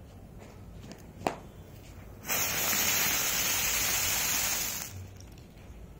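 Mercury 'Dollar Wheel' ground spinner firework catching and spinning, giving a loud rushing hiss of sparks for about two and a half seconds before dying out. A single sharp tick comes about a second in, just after the fuse is lit.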